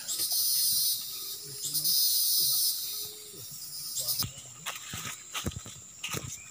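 Forest insects buzzing loudly in two high-pitched bursts, each about a second long, in the first three seconds. In the second half come scattered sharp clicks and scuffs of footsteps along the path.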